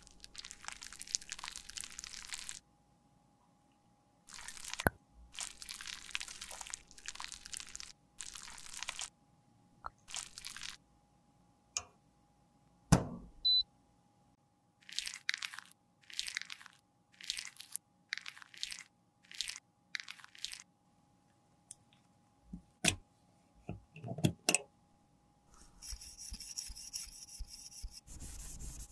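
A metal spatula scraping and crunching broken lipstick out of its tube in a run of short strokes, with a few sharp knocks in between. Near the end a steady rubbing as the lipstick case is wiped with a tissue.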